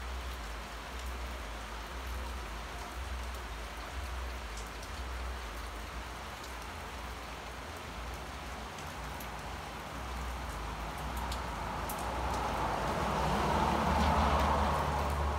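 Steady rain falling. A car drives past on the wet street over the last few seconds, its tyre hiss swelling and loudest near the end.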